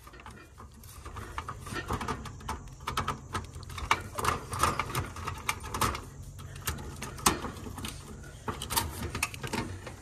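A two-in-one screwdriver working the wire terminals in an air-conditioner condenser's control panel: irregular small metal clicks and scrapes, with a low steady hum underneath.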